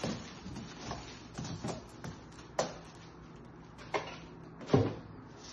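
Slices of Texas toast set down one at a time on a foil-lined metal baking sheet: about six light knocks, the loudest near the end.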